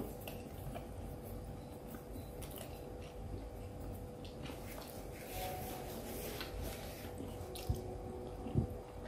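Faint close-up chewing of a fried risol mayo (breaded pastry roll), soft wet squishing with small mouth clicks, over a steady thin hum. Two soft low thumps come near the end.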